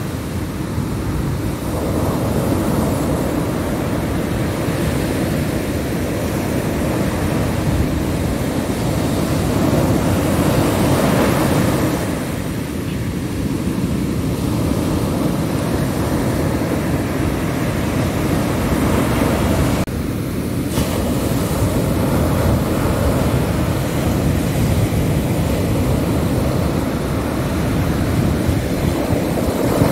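Ocean surf breaking: a steady roar of waves that swells and eases as they break.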